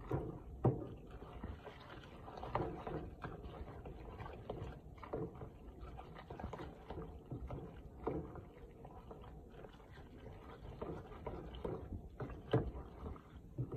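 Spatula stirring cooked macaroni with cheese in a stainless steel pot: irregular wet stirring strokes, with a few sharper taps against the pot, one about a second in and one near the end.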